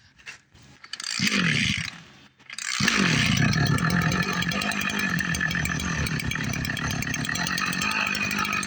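Small two-stroke engine of a motorised knapsack sprayer being started: it fires briefly about a second in and dies, then catches near three seconds in, its revs dropping and settling into a steady fast run.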